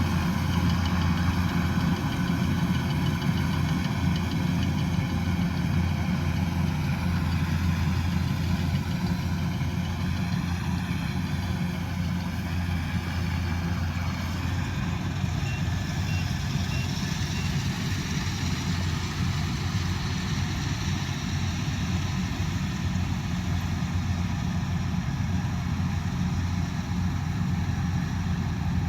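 Combine harvester's diesel engine running steadily with a deep, even hum, and a faint higher whine wavering in pitch partway through.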